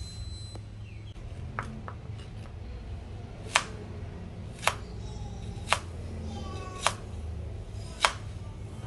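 Kitchen knife slicing fresh ginger on a wooden cutting board, the blade knocking against the board. A couple of faint knocks come early, then five sharp ones about a second apart from the middle on, over a steady low hum.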